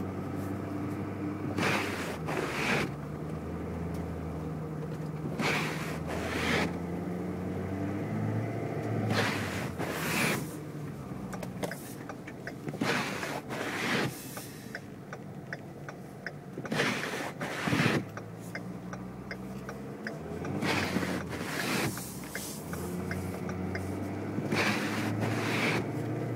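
Inside a car moving slowly on snow: a steady engine hum, with the windshield wipers sweeping across the glass. Each up-and-back pass makes two swishes about a second apart, repeating about every four seconds. A run of light ticks comes in the middle.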